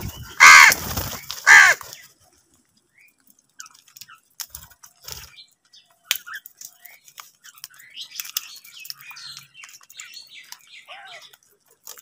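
House crows cawing: two loud, harsh caws in the first two seconds, followed by soft beak taps on concrete and quieter calls as the flock feeds on scattered grain.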